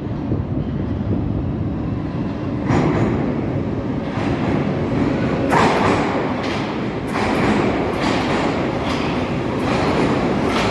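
Moscow Metro train running on the rails, a steady rumble that builds after a few seconds. From about halfway in its wheels clack over the rail joints at a regular pace of a little over one a second.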